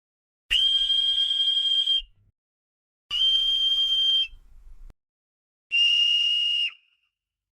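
A whistle blown three times, each a steady, breathy high blast of about one to one and a half seconds, the third a little lower and shorter.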